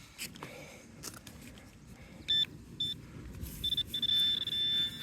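Metal detector giving a target tone: two short high beeps about half a second apart, then a long steady high tone from about three and a half seconds in, signalling a metal target under the search coil.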